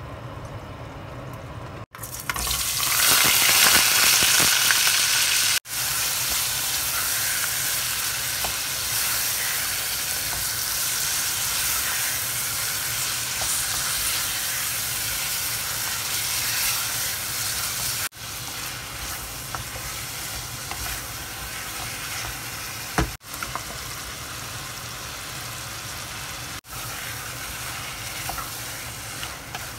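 Sliced red onion and chili frying in hot oil in a stainless steel pot: loud sizzling from about two seconds in, easing after a few seconds to steady sizzling as it is stirred with a wooden spoon. One sharp knock about three-quarters of the way through.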